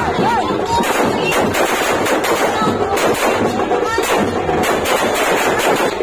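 A string of firecrackers bursting in the street: many sharp cracks in rapid, irregular succession, with music playing underneath.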